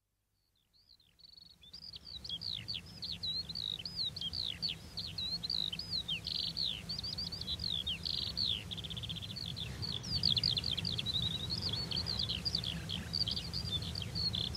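A small songbird singing a fast, unbroken run of high chirps, trills and down-sweeping notes, over a low steady rumble, fading in about a second in.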